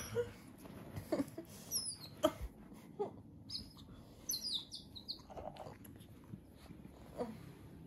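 Otters giving short, high-pitched squeaky chirps: a couple about two seconds in and a quick run of falling chirps around the middle, with faint clicks and snuffling between them.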